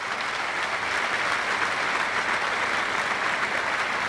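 Audience applauding, building up over the first second and then holding steady.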